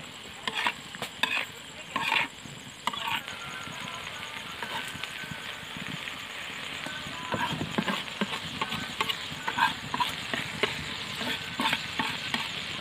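Small river fish frying in a spicy gravy on a flat pan, sizzling steadily, while a metal spatula scrapes and knocks against the pan: several strokes in the first three seconds, a steadier hiss in the middle, then more strokes through the second half.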